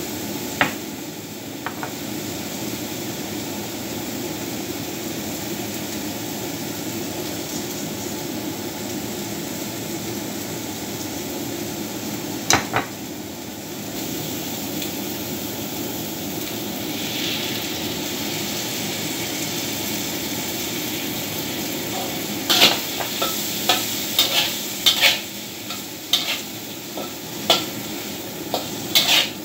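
Sliced mushrooms sizzling steadily in a hot wok while being stir-fried. A metal spatula knocks against the wok once or twice early on and about twelve seconds in, then scrapes and clacks against it in a quick run of knocks over the last seven seconds.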